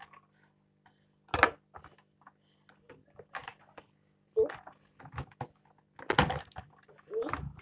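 Clear plastic packaging being handled: a string of irregular clicks and knocks, the loudest about a second and a half in and again about six seconds in.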